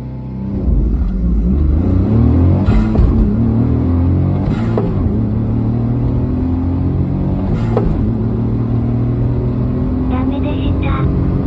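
Honda S660's small turbocharged three-cylinder engine, first held at about 3,500 rpm at a standstill, then launched at full throttle about half a second in and pulling hard up past 100 km/h. Its note climbs, with three brief breaks along the way.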